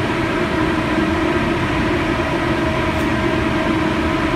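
Wind tunnel fans running steadily: a loud, even rush of air with a steady hum underneath.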